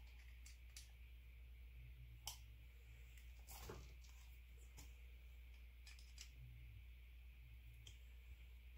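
Near silence over a low steady hum, with a handful of faint, scattered clicks from hands handling the fuel rail and wiring connectors on the engine.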